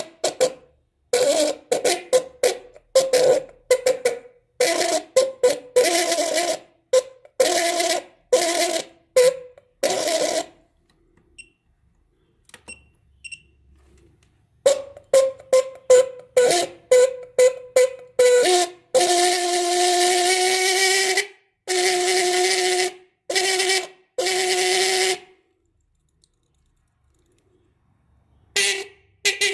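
Car horn sounding in many short, rapid honks with brief pauses. Later come a few longer blasts at a lower pitch.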